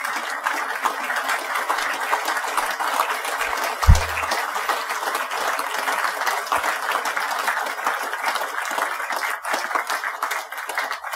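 A large seated audience applauding, a dense steady patter of many hands clapping. A single low thump sounds about four seconds in.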